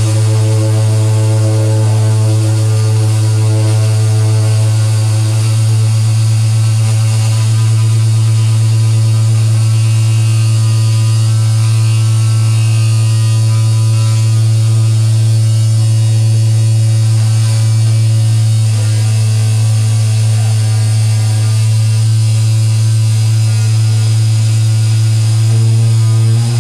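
A loud, steady low electronic drone with hiss on top, from a live rig of patch-cabled synthesizer modules and effects pedals. Its upper overtones fade around the middle and come back near the end.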